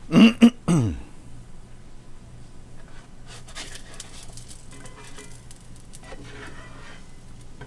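Pancake frying in hot fat in a cast iron pan, a faint sizzle with light scrapes and taps of a utensil against the pan. A brief vocal sound with a falling pitch in the first second is the loudest thing.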